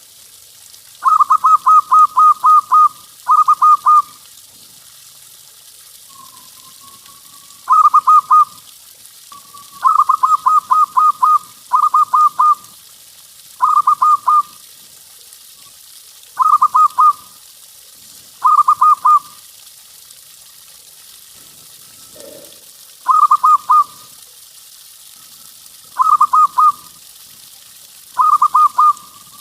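Zebra dove (perkutut) cooing loudly in about eleven short phrases of quick, repeated staccato coos, each phrase a second or so long, with pauses of one to four seconds between them, over a faint steady hiss.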